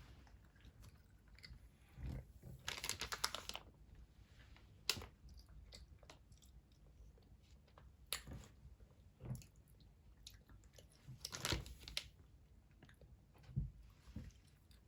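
A toddler chewing a snack: quiet, scattered mouth and chewing sounds with gaps between.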